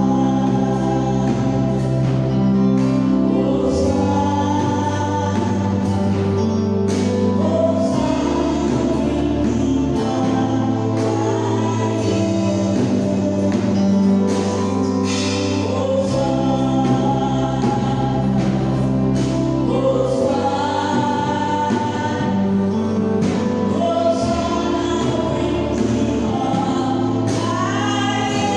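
Gospel choir singing over instrumental accompaniment, with long held bass notes that change every few seconds.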